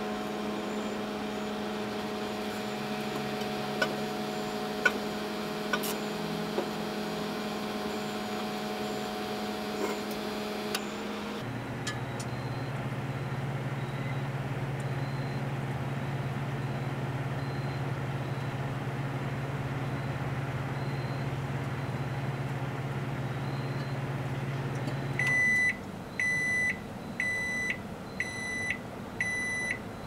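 Hamilton Beach microwave oven running with a steady hum, with a few sharp clicks in the first ten seconds while the light bulb inside sparks. About eleven seconds in the hum drops to a lower pitch. Near the end the oven gives five high end-of-cycle beeps, about one a second, as the cook time runs out.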